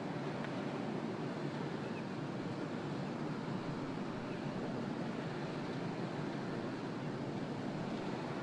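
Steady outdoor noise at a pier beside a moored warship: a wash of wind with a faint, even machinery hum underneath.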